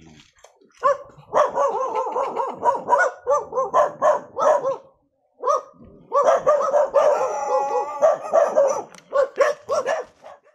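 Dog barking in quick, repeated barks, in two long runs with a brief pause about five seconds in.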